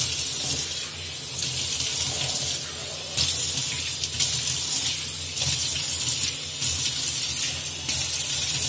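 Tap water running through a thin hose and splashing into a stainless steel kitchen sink as the basin is rinsed by hand, a steady hiss that rises and dips slightly as the stream is moved.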